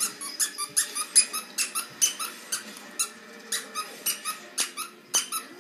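Squeaky dog toy squeezed repeatedly by hand: a quick, even run of short high-pitched squeaks, about four a second, stopping shortly before the end.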